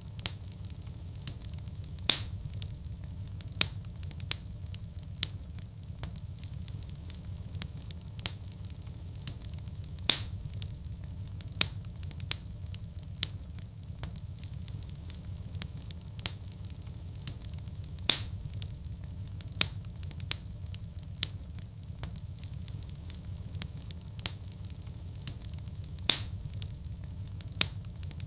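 Wood fire burning in a fireplace: a steady low rumble of flames with sharp crackles and pops, the loudest pops coming about every eight seconds.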